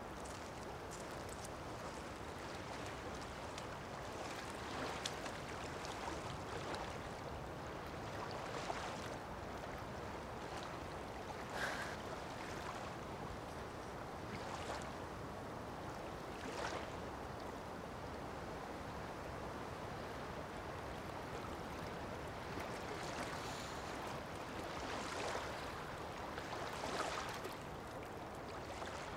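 Small waves lapping on a pebble shore over a steady hiss of outdoor ambience. Soft washes come and go at irregular intervals a few seconds apart.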